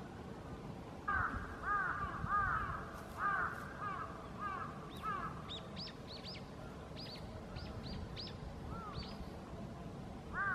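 Bull-headed shrike calling: a run of about eight harsh, arched notes, roughly two a second, then a series of short, higher notes that each drop in pitch. One more loud call comes right at the end.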